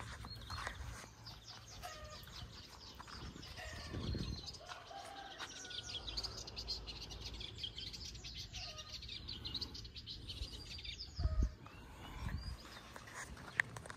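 Many small birds chirping in quick short notes, thickest in the middle, with a few low footstep thumps, the loudest one near the end.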